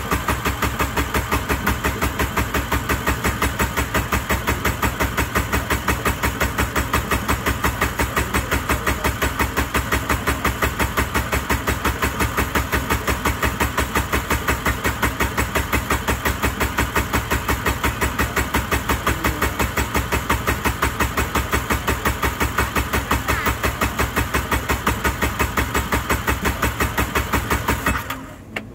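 Jet ski engine being cranked over by its electric starter in one long steady run with an even rhythm, turning over without catching. It stops suddenly near the end.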